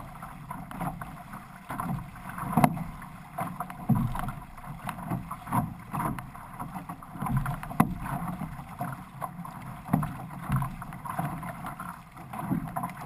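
Six-person outrigger canoe under way: water rushing past the hull and ama and splashing in a rough rhythm with the paddle strokes, with a few sharp slaps and some wind on the microphone.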